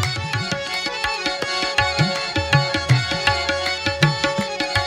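Instrumental passage of a live Sufi song with no singing: fast hand-drum strokes, some deep strokes bending in pitch, over steady sustained instrument tones.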